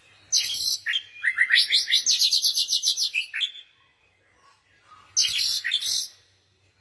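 Songbird singing: a short harsh high note, then a fast run of chirps lasting about two seconds, then after a pause another harsh note.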